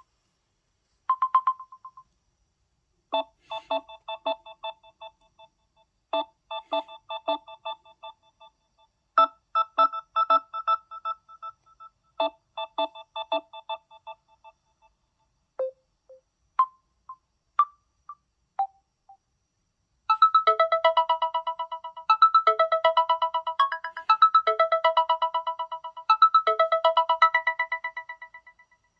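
Samsung Galaxy A12 ringtones playing one after another: melodies of short, clear electronic notes, several different tunes in turn with brief gaps between them. About two-thirds of the way in, a denser tune of rapidly pulsing notes begins.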